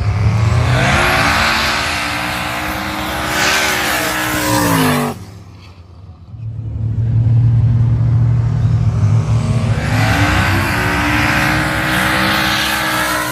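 Single-turbo LS V8 drag car running at full throttle down the strip, engine note rising and then dropping as it lifts off. The sound breaks off suddenly about five seconds in, and a second full-throttle run follows that also rises, then falls away near the end.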